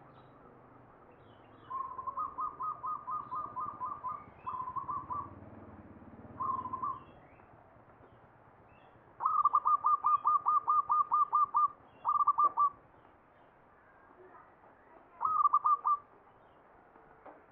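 Zebra dove (perkutut) singing twice, each song a rapid stuttering run of about a dozen cooing notes followed by two short bursts, the second song louder. It is the song style Javanese fanciers call ngepat, after the classic Mataram standard.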